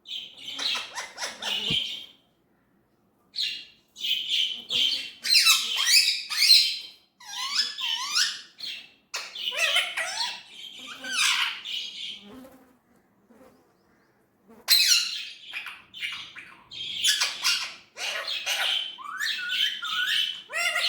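Indian ringneck parrot chattering and squawking in runs of shrill calls, with two short pauses of about two seconds between the runs.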